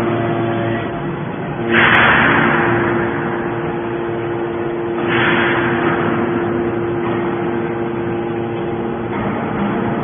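Hydraulic metal scrap baler running with a steady hum, broken by two sudden hissing rushes, about two and five seconds in, each fading over a second or so.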